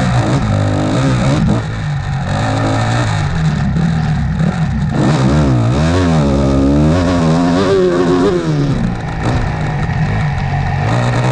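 Off-road motorcycle engine under racing load, revving up and dropping back again and again as the throttle is worked, the pitch swinging up and down every second or so.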